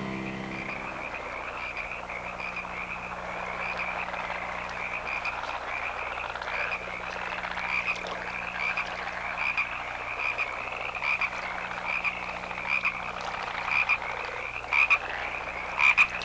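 A chorus of many frogs calling, a dense mass of overlapping short chirps, with a few louder, closer calls near the end.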